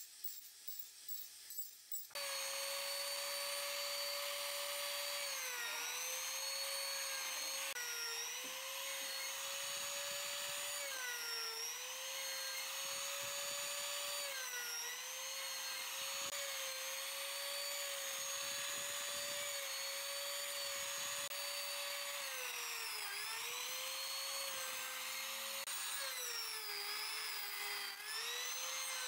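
Angle grinder with a sanding disc rubbing faintly against wood. About two seconds in, an electric wood router takes over with a loud, steady high whine, its pitch sagging briefly every few seconds as the bit bites into the end of a log to cut a notch.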